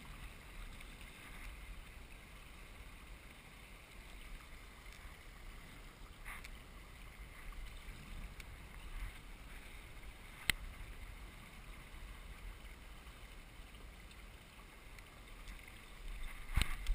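Water rushing and splashing along the hull of a Hunter 18 sailboat under way, with a low rumble of wind on the microphone. A sharp click sounds about ten seconds in, and a louder knock comes near the end.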